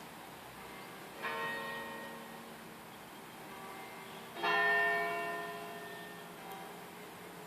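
Church bell tolling: two strokes about three seconds apart, each ringing out and slowly fading.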